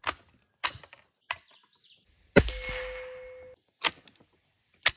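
Sharp metallic clicks of a .22 rifle's bolt being worked, then a single shot about halfway through followed by about a second of metallic ringing, and two more clicks of the action near the end.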